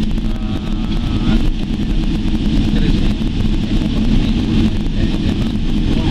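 Jet airliner cabin noise while taxiing: the engines' steady rumble and whine heard from inside the cabin.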